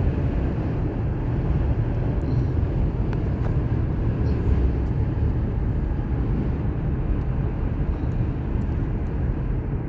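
Steady low rumble of a car driving, with road and engine noise heard from inside the cabin.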